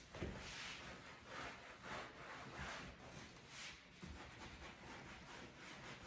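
Cloth wiping over leather upholstery in repeated, irregular rubbing strokes, faint.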